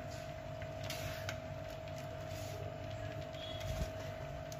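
Hands mixing shredded boiled chicken with chopped spring onion and carrot on a plate, giving faint soft rustles now and then. Under it runs a steady machine hum with one constant tone.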